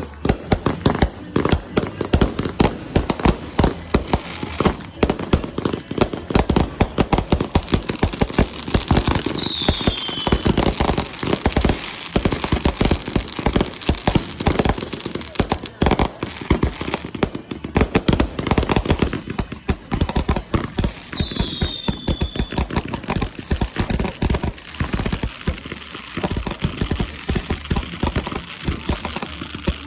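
Fireworks going off in a dense, continuous barrage of bangs and crackling reports. A falling whistle cuts through about ten seconds in and again about twenty-one seconds in.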